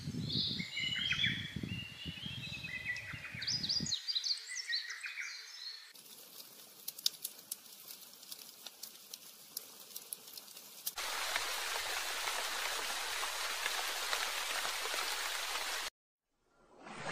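A run of short recorded nature-sound samples: birds chirping over a low rumbling wash for the first few seconds, then a few quieter seconds of faint sparse crackling, then a steady even hiss like white noise or rain that cuts off abruptly near the end.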